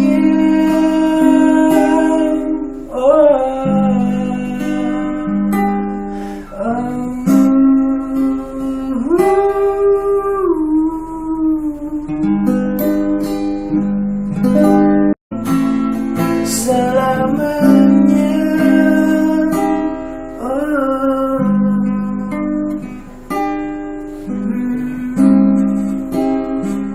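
Acoustic guitar strumming chords with a melody over them through an instrumental break in a song, cutting out to silence for a split second about halfway through.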